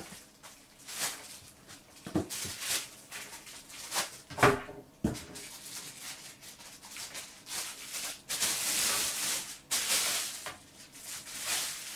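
Clear plastic wrapping crinkling and rustling in uneven bursts as it is pulled off a soundbar, with a couple of light knocks near the middle as the bar is handled.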